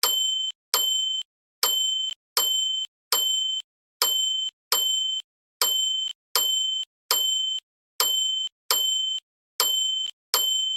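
A small bell rung over and over, about two short bright rings a second, each cut off after a fraction of a second.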